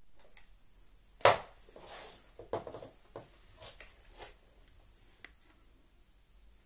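Diagonal cutting pliers in their packaging card set down on a laminate floor with one sharp knock about a second in, then handled, with a few lighter clicks and rustles of the card.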